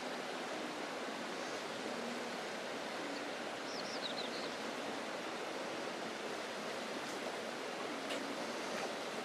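Steady rushing outdoor noise, with faint short low hums from the alpaca herd now and then and a brief high chirp about four seconds in.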